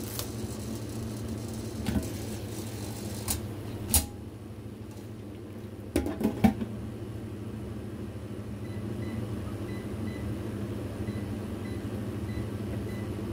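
Steady low hum of a kitchen appliance, with a few sharp clicks and knocks from handling things on the counter: one near 2 seconds in, one near 4 seconds, and three close together near 6 seconds. In the second half a faint high tone pulses about twice a second.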